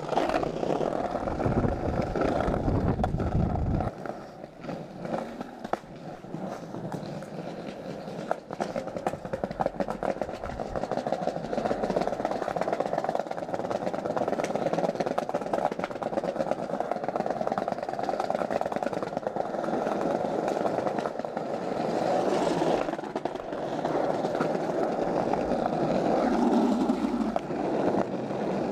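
Skateboard wheels rolling over paving tiles: a steady, rough rolling noise with rapid clicks as the wheels cross the joints. A heavy low rumble runs through the first four seconds.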